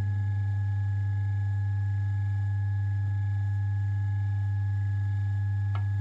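Old bench grinder's electric motor running with no work on the wheel, giving a steady low hum.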